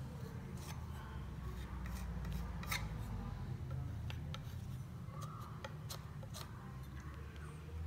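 Small plastering tool scraping and rubbing fresh cornice cement on a plaster cornice mitre as it is finished off, in irregular light scrapes and clicks. A steady low hum runs underneath.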